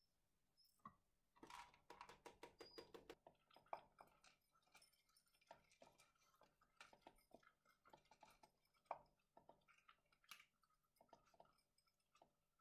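A cat and a chihuahua-pug mix dog eating from their food bowls side by side: quiet, irregular chewing with crunches and clicks, with a quick run of them about two seconds in.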